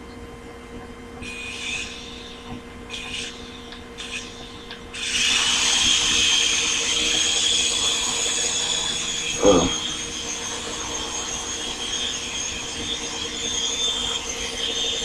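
Small electric motor and rotors of a modified toy RC helicopter: three short blips, then a spin-up about five seconds in to a steady high-pitched whine as it flies. A brief loud wavering sound comes about halfway through.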